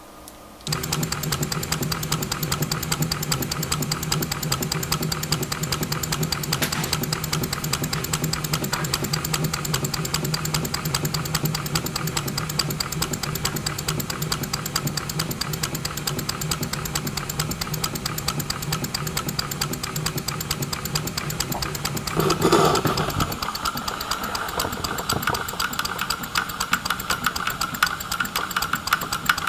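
Scratch-built model Armstrong hydraulic pumping engine running on compressed air, starting suddenly with rapid, even exhaust beats and mechanical clatter. A steady low hum underneath stops about three-quarters of the way through, and after that the running sound has a higher, brighter edge.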